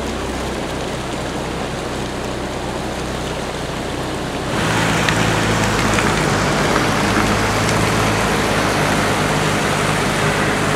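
Floodwater rushing along a street in heavy rain, a steady wash of noise. About four and a half seconds in it gets suddenly louder as the car drives through the flooded street: a steady engine hum under the hiss of water from the tyres.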